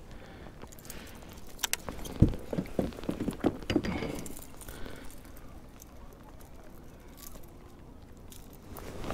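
Knocks, clicks and rustling from gear being handled in a fishing kayak, with a waterproof jacket rubbing. A quick cluster of knocks comes about two to four seconds in, the loudest near two seconds, then the sound settles to quieter rustling.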